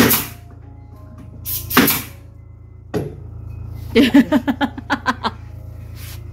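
Steady low hum of a running machine, with a few short noisy bursts, a sharp snap about three seconds in, and a quick run of about ten pulses between four and five seconds.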